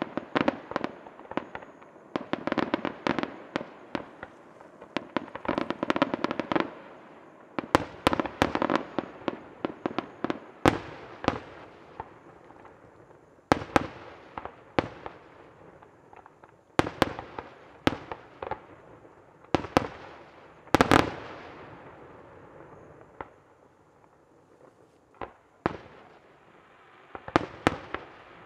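Aerial fireworks shells bursting: a rapid run of crackling bangs, then single sharp bangs every second or two with echoing tails. The bangs ease off for a few seconds before a last few near the end.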